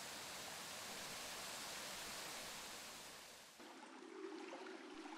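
Faint, steady rushing hiss of outdoor ambience, fading out about three and a half seconds in. After that only a quieter background remains, with a faint low hum.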